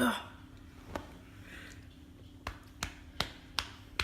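A short vocal groan, then someone chewing dry dog food kibble: sharp, crisp crunches, a single one about a second in and then coming faster, roughly three a second, from midway on.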